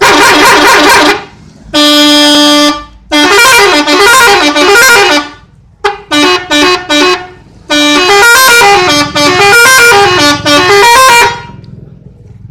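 Indonesian telolet bus horn, a multi-tone musical horn, sounding in a series of loud blasts. A short blast, a single held note about two seconds in, then quick tunes stepping up and down in pitch, a few short toots around six seconds in, and a long melodic run that stops about eleven seconds in.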